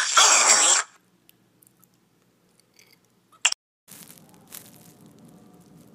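A man's loud, rasping, cough-like vocal noise, made with his mouth wide open, lasting under a second. It is followed by quiet, a single sharp click about three and a half seconds in, and then a faint steady room hum.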